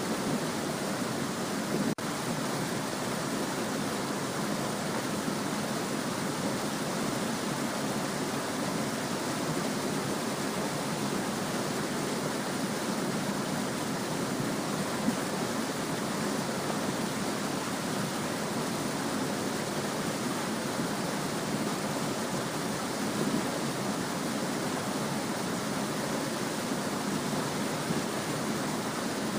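Small stream running: a steady, even rush of flowing water.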